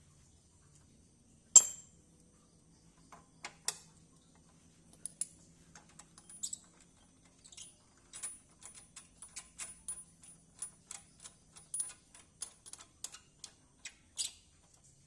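A series of light, sharp clicks and taps of small hard objects being handled, with one louder clink about a second and a half in and quicker, irregular tapping through the second half.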